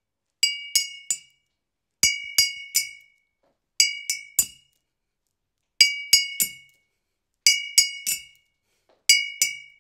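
Two metal spoons striking a glass bottle in quick sets of three clinks, six sets in all, each clink ringing briefly with the same bright glassy tone.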